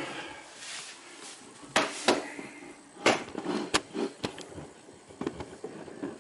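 Handling noise: several sharp knocks and clicks with light rustling in between.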